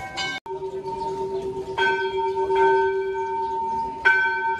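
Hindu temple bells being rung: about three strikes roughly a second apart, each one ringing on in a steady tone that carries through to the next.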